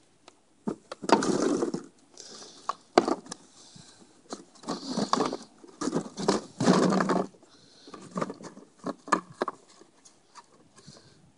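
Empty plastic drink bottles rustling and knocking against each other and against a hard plastic tub as a Belgian Malinois puppy pushes her head through them, searching. It comes in irregular bursts with sharp knocks, loudest about a second in and again around six to seven seconds.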